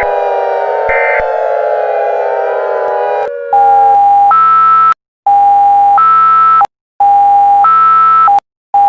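Several electronic sirens wailing over one another, their pitches slowly rising and falling. About three seconds in they stop and give way to three loud bursts of buzzy electronic alert tones, each a low tone stepping up to a higher one, with a short fourth burst at the end.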